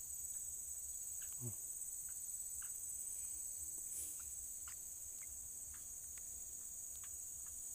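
Steady, high-pitched chorus of insects, with a few faint short ticks scattered through it.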